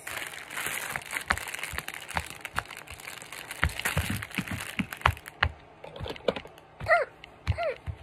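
Bubbles of a silicone pop-it fidget toy being pushed in one after another with a finger: an irregular string of short, soft pops. Near the end come two brief vocal sounds from the child that fall in pitch.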